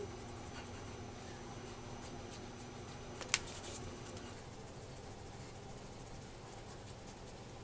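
Faint scratchy crackling of hands rubbing oil into a beard over a low, steady room hum, with one sharp click a little over three seconds in.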